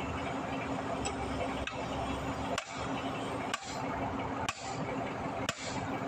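Steel hand hammer striking a steel bar, six sharp metallic blows at about one a second, driving the bar out of a hydraulic breaker part.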